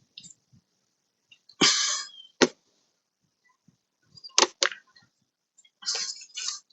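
Scattered sharp clicks and short scraping noises of a screwdriver working a screw into a car door panel, with a pair of clicks in the middle.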